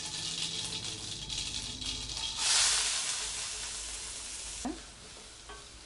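Hot oil with mustard seeds sizzling in a stainless steel kadai. About two and a half seconds in, a sudden loud surge of sizzling as chopped onion and curry leaves go into the oil; it fades over the next two seconds, then drops off abruptly and stays quieter.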